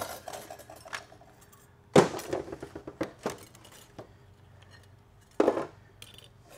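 Steel TH350 transmission parts clinking and clanking against each other and the metal bench as a clutch drum is handled and taken apart, with two louder clanks about two seconds in and near the end.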